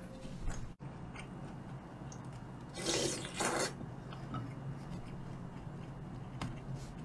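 Close-miked eating of tteokbokki: quiet chewing and mouth sounds, with two loud, noisy slurps about three seconds in.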